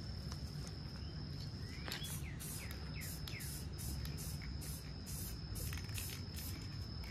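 Aerosol spray-paint can of Krylon Fusion Spanish Moss Green hissing in many short, quick bursts as a camo pattern is dabbed onto a rifle. Under it runs a steady high-pitched insect drone, and a bird gives a run of descending chirps about two seconds in.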